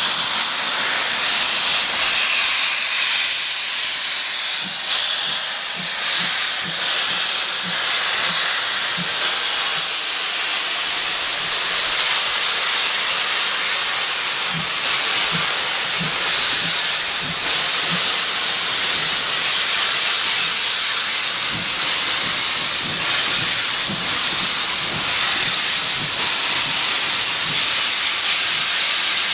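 Steam locomotive No. 6990 Witherslack Hall, a GWR Modified Hall 4-6-0, hissing steadily as steam blows from its open cylinder drain cocks while it moves slowly. Faint low beats repeat about twice a second under the hiss.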